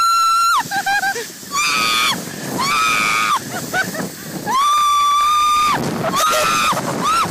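People screaming as they slide down a snow hill on inner tubes: several high screams, the longest about five seconds in, then a run of quick short yelps near the end, over a steady rushing noise.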